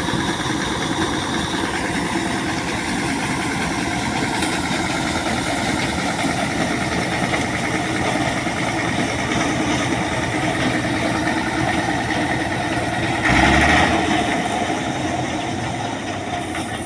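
Wheat harvesting machine running steadily, its engine and machinery making a dense, even drone, with a brief louder surge about thirteen seconds in.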